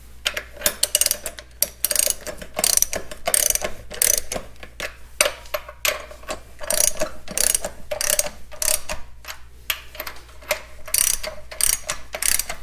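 Ratchet wrench clicking in quick runs of strokes with short pauses between them, working the bolts of a tractor's brake housing cover.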